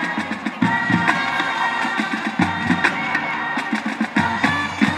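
High school marching band playing: brass horns and sousaphones over a drum line, with sharp percussion hits on the beat.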